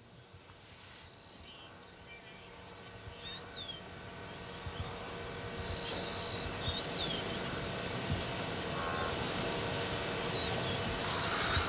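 Open savanna ambience, gradually growing louder: a steady hiss of insects with a few short bird chirps, twice in quick succession a few seconds in and again about halfway.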